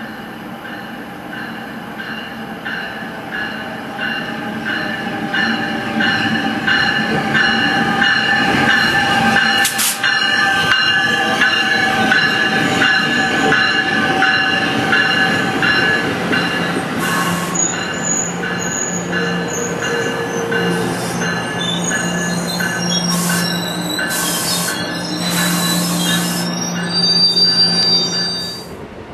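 Commuter train rolling through the station with its wheels squealing in several high steady tones. Even clicking of the wheels over the rail joints is heard over the first half, and a low steady hum joins later. The sound cuts off suddenly near the end.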